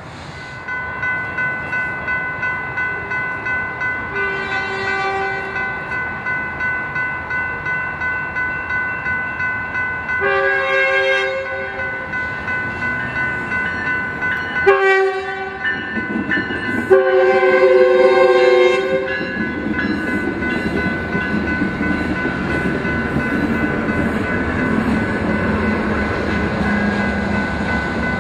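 A grade-crossing bell rings steadily while an approaching Metrolink commuter train's diesel locomotive sounds its horn in the standard crossing pattern: two long blasts, a short one and a final long one. After the last blast the train's running noise grows as it reaches the crossing.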